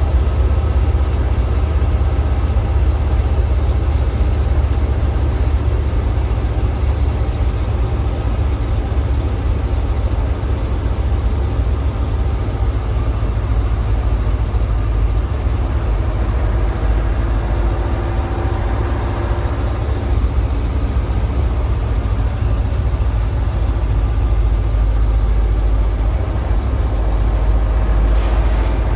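Mercedes-Benz truck's OM 403 V10 diesel engine running steadily under way, heard from inside the cab, with a strong deep low end.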